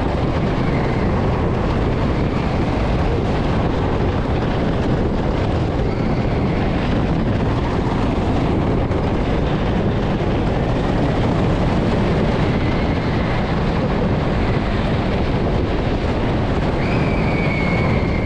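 Wooden roller coaster train running at speed, heard from the front row: a loud, steady rumble and clatter of the wheels on the wooden track, with wind on the microphone. A brief high squeal comes near the end.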